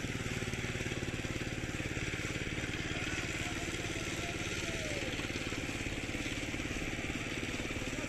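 A small engine running steadily at an even, rapid putter, unchanged throughout.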